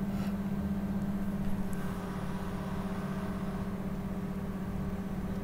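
A steady low-pitched hum with faint room noise.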